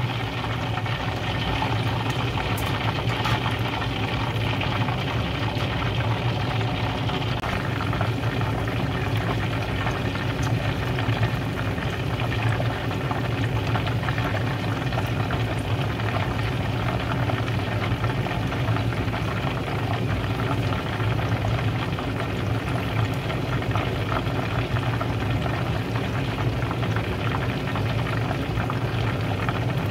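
Whole chicken deep-frying in a pot of hot oil: a steady sizzle and bubbling of the oil, over a steady low hum.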